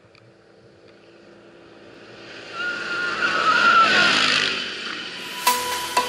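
Side-by-side buggy (Polaris RZR) approaching on a dirt road and passing close by. Its engine and tyre noise, with a wavering whine, build to a peak about three to four seconds in, then fade. Music with struck mallet-like notes comes in near the end.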